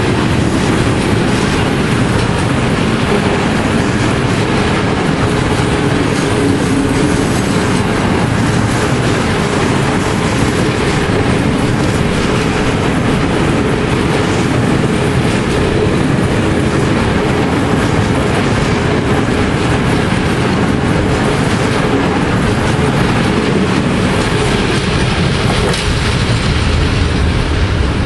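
Loaded freight wagons rolling past close by: a steady rumble of steel wheels on the rails with a dense clickety-clack of the wheelsets. The high part of the noise thins near the end as the last wagon goes by.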